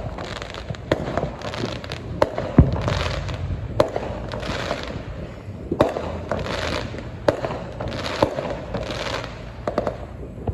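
Distant fireworks display: a dozen or so bangs at uneven intervals, the loudest about two and a half seconds in. Several bangs are followed by a short crackling hiss.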